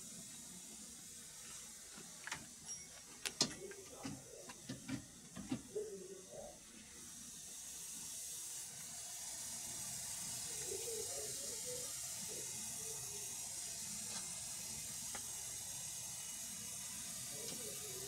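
Gauge hoses clicking and knocking as they are handled at an air conditioner outdoor unit's service valves, then from about seven seconds in a steady hiss of gas escaping through the hose connections.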